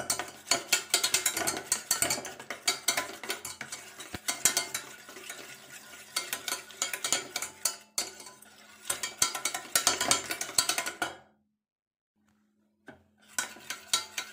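Wire whisk beating yogurt in a steel bowl: fast, continuous scraping and clinking of the wires against the metal. It breaks off for about a second and a half near the end, then starts again. A steady low hum runs underneath.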